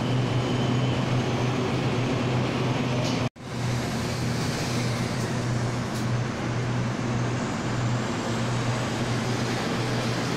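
Taiwan Railway commuter electric train standing at the platform, its onboard equipment giving a steady low hum over a constant rush of noise. The sound cuts out for an instant about three seconds in.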